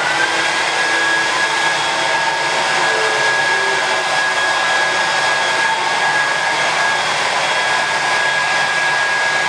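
Handheld hair dryer blowing on a client's hair: switched on at the start, its high whine rising briefly then holding steady over the rush of air, and switched off at the end.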